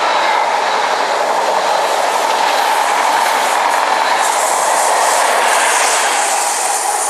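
Hauled Mk3 passenger coaches passing close at speed, with steady wheel-on-rail noise.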